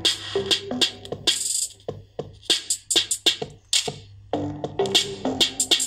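Electronic music with a drum-machine beat playing through a small speaker driven by a homemade TEA2025 bridge-mode amplifier board, as a test of the finished amplifier.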